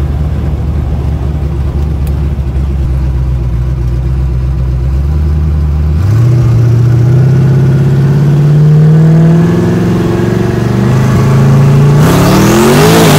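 Twin-turbocharged 427 small-block Chevy V8 in a 1969 Camaro, heard from inside the car: it cruises steadily at low revs, then about halfway through accelerates hard, its pitch climbing. The pitch dips briefly at a gear change and climbs again, and near the end a loud rushing noise joins in.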